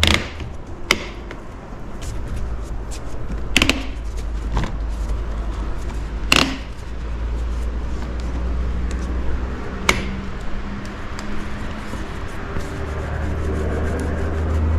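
About five sharp knocks and clicks, spread seconds apart, of an axe being set into ratcheting ATV gun-and-tool grips and the grips clamping shut, over a steady low rumble that fades in the middle and swells again near the end.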